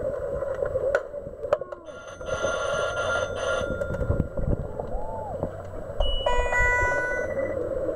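Underwater referee buzzer sounding twice, each time for about a second and a half, over a steady underwater hiss with scattered clicks of play. It is the signal that stops play in an underwater hockey game.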